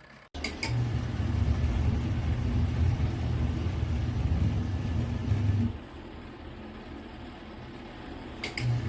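Mini twin-tub washing machine's motor humming as it runs. It drops off about six seconds in and starts up again near the end, with a sharp click at each change.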